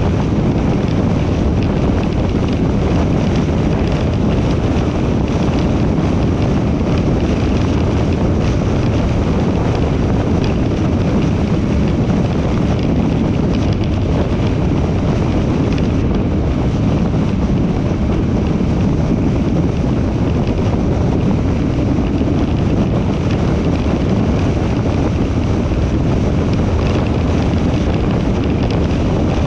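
Steady rush of wind and road noise from a car travelling at highway speed, with wind buffeting the microphone.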